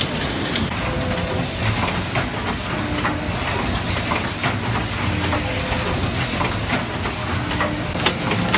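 Steady hiss and clatter of citrus packing-line machinery, with scattered sharp clicks and brief low hums recurring every couple of seconds.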